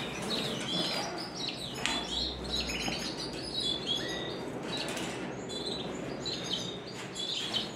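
Canaries chirping: many short, high chirps overlapping one another, with a few faint clicks among them.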